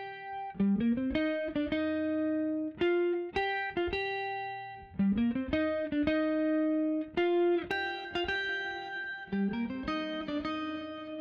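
Background music: a plucked guitar melody of single notes, with an upward slide three times.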